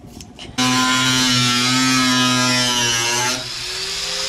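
Cordless drill motor running with a steady whine that starts suddenly about half a second in. About three seconds in it gets quieter and its pitch shifts slightly.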